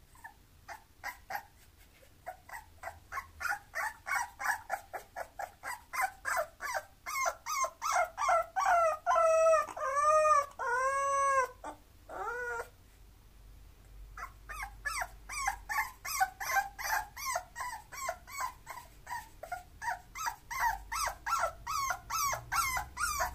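Bulloxer (bulldog–boxer cross) puppy whining in a long run of short, high yelps, about two or three a second. About halfway through come a few longer cries that rise and fall like a howl. After a brief pause the quick yelps start again.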